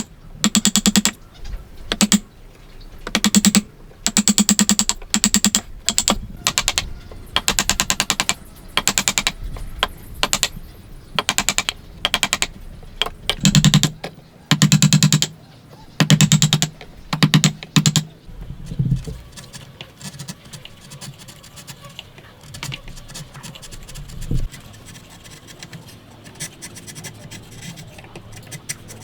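Hand saw cutting wood in repeated strokes, about one a second. After about eighteen seconds the strokes stop and give way to quieter scraping on wood.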